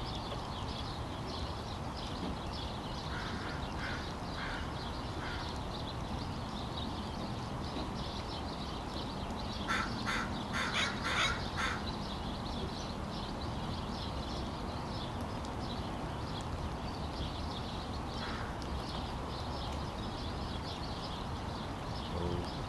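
Crows cawing over a steady low background rumble: a few short caws about three to five seconds in, then a louder run of several caws around ten to eleven seconds in.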